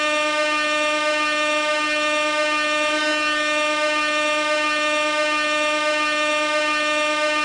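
Gas air horn sounding one continuous blast, a single steady note rich in overtones held without a break or change in pitch.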